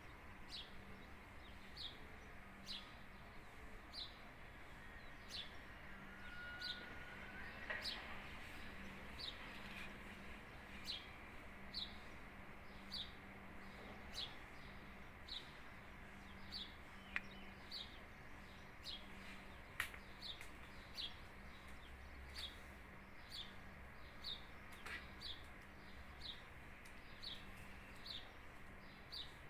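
A small bird repeating one short, high, falling chirp at a steady pace of about three every two seconds. Two sharp clicks stand out near the middle.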